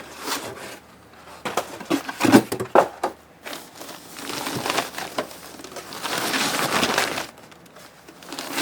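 Packaging being handled as a Blu-ray player is lifted out of its box. Several sharp knocks and crinkles come in the first few seconds, then a longer rustling of packing material.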